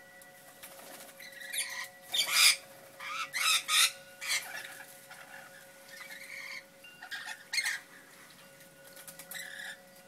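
Rainbow lorikeets giving harsh, screeching calls in short bursts, a cluster of them about two seconds in and a few more near the end.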